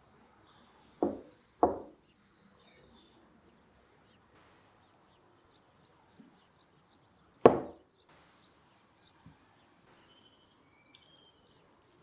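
A glass tea cup set down on a wooden table: two sharp knocks about a second apart near the start, and a louder third knock about halfway through. Faint bird chirps in the background.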